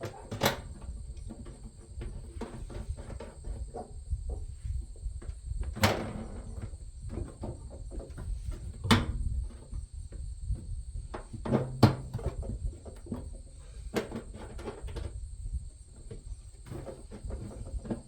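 Sheet-metal smoker parts and screws being handled and fastened during assembly: irregular clicks and knocks, with about five sharper knocks spread through, over a steady low rumble.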